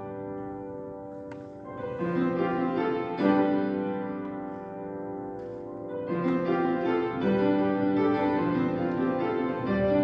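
Background music led by piano, with held chords that change every second or few.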